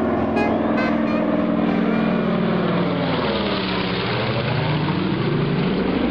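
Douglas DC-3's twin radial engines and propellers droning loudly in a low flyby. The pitch sweeps down as the plane passes overhead, around the middle.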